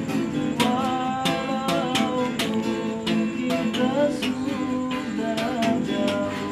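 Two acoustic guitars strummed steadily in rhythm, with a man's voice singing a melody over them.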